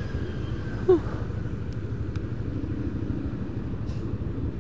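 Street traffic at a city intersection: a steady low rumble of motorcycle and car engines idling and moving, heard from a scooter waiting at the light. A short, sharp pitched blip cuts through about a second in.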